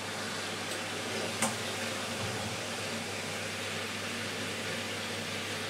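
Combi boiler running as its central heating comes on: a steady fan-like noise with a low hum, and a single short click about a second and a half in.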